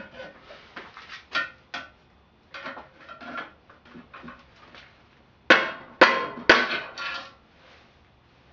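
Hammer blows knocking a steel bicycle headset cup out of the frame's head tube: light metallic taps and clinks, then four hard strikes about half a second apart, each with a short ring.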